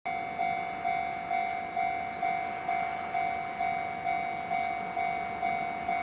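Railway level-crossing warning alarm ringing in a steady repeating rhythm, about two strikes a second, each ring dying away quickly: the signal that a train is approaching the crossing.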